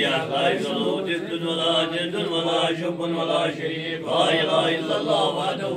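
A group of men chanting prayers together, a steady, continuous recitation of several voices.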